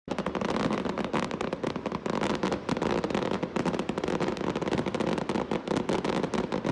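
Fireworks crackling: a dense, steady run of rapid small pops.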